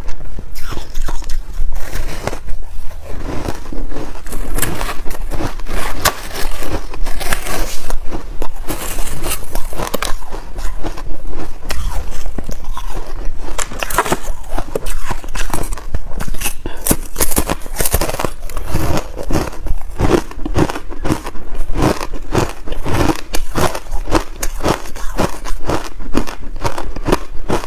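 Close-miked biting and crunching of hard frozen buckwheat ice chunks: a dense, irregular run of sharp cracks and crackles as the ice breaks and is chewed.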